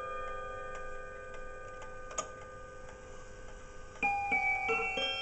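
Kieninger triple-chime pendulum wall clock: the notes of a chime phrase ring on and slowly fade while the movement ticks softly, with one sharp click about two seconds in. About four seconds in, the hammers start striking the next phrase of notes, one after another.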